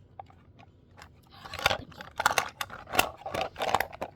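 Plastic fidget toys being handled and rummaged through, with a quick run of sharp clicks and rustling starting about a second and a half in.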